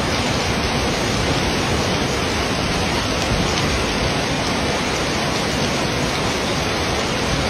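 Heavy rain and a floodwater torrent rushing down a street, a steady loud rush of water.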